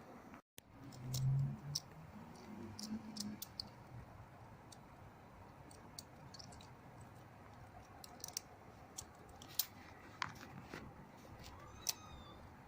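Kittens stirring in a basket: faint, scattered light clicks and scratches, with a short low hum about a second in.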